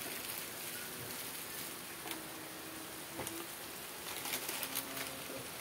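Curry sauce simmering in an aluminium wok, bubbling with a steady crackle of small pops and spatters as it cooks down toward the oil separating. Faint low held tones in the background, a few times.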